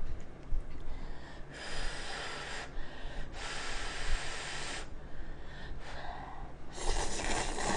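Instant cup noodles being slurped off chopsticks: three long sucking hisses of a second or so each, about one and a half, three and a half, and seven seconds in.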